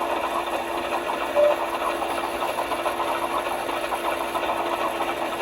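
Model railroad crane car's small electric motor and gears running with a steady rattling whir as the crane cab turns around, with a brief squeak about a second and a half in.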